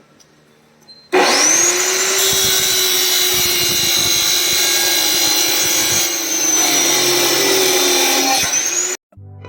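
Circular saw starting about a second in, its whine rising quickly to speed and then running loud and steady. It stops abruptly near the end.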